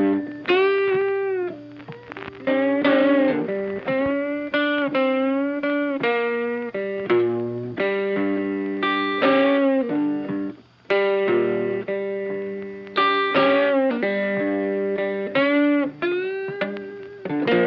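Background music: a guitar instrumental whose lead plays bending, sustained notes, with a new phrase struck every second or so.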